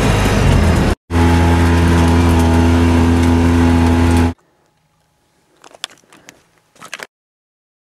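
Motor vehicle driving, a loud steady engine drone over road noise. It breaks off for an instant about a second in and stops abruptly after about four seconds, followed by a few quieter clicks and knocks.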